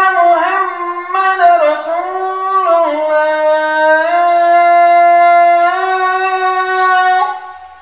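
Adhan, the Islamic call to prayer, chanted by a lone man's voice without accompaniment. Wavering, ornamented notes settle into a long held note that steps up once and breaks off about seven seconds in.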